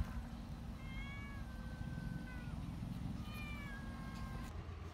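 Domestic cat meowing twice: a long drawn-out meow about a second in, and a shorter one about three seconds in.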